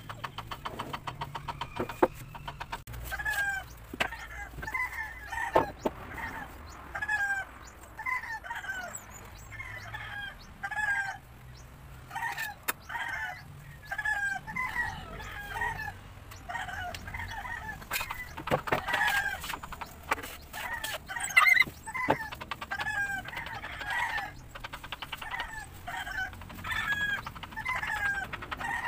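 Chickens clucking, with many short calls repeated throughout, and a few sharp knocks scattered among them.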